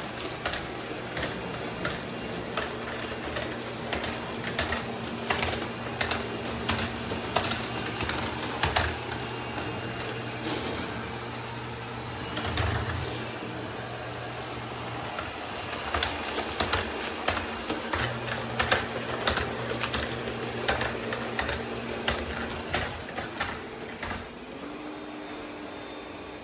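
ECOVACS DEEBOT T50 Max Pro Omni robot vacuum-and-mop system running, a steady motor hum with many irregular clicks and rattles. The hum drops out and shifts pitch a few times, and near the end a higher steady tone takes over.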